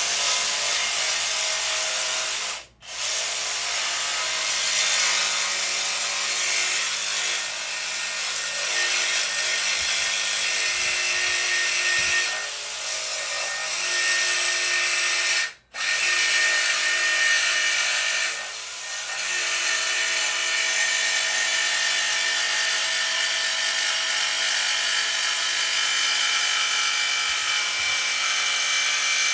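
Ryobi jigsaw cutting a hole out of a steel bandsaw-stand panel, its blade sawing the metal steadily. It stops for a split second twice, about three seconds in and again about halfway through.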